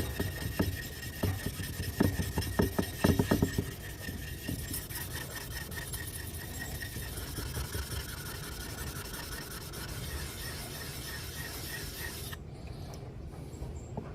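A small red jasper sharpening stone being rubbed back and forth on an old diamond plate to lap its face flat, a gritty rasping scrape. It goes in sharp separate strokes for about the first four seconds, then settles into a steady grinding that stops abruptly near the end.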